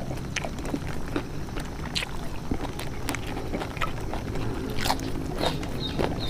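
Close-up chewing of raw papaya leaves, an irregular run of crisp crunches and wet mouth clicks. Short high chirps start repeating near the end.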